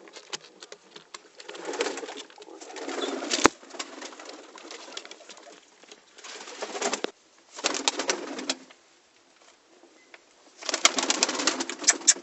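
Pakistani high-flyer pigeons in a loft: cooing, with bursts of rustling and sharp clicks in between.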